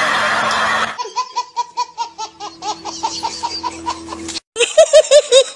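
A baby laughing in quick, rhythmic squealing giggles, about four or five a second, after a second of dense crowd noise. Near the end, after a brief break, louder and lower laughter comes in quick pulses.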